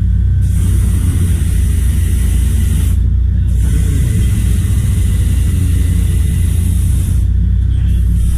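Shrimp trawler's engine and deck machinery running with a loud, steady rumble, under a steady hiss that drops out briefly three times.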